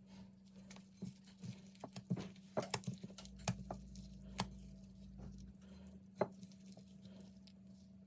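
A plastic-gloved hand pressing and turning a dough knot in a glass bowl of oily garlic-herb butter: a run of short wet squelches and clicks, thickest about two to three seconds in, with a last one about six seconds in.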